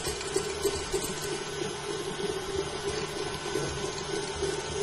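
Electric stand mixer running steadily, its whisk beating egg white and icing sugar into royal icing.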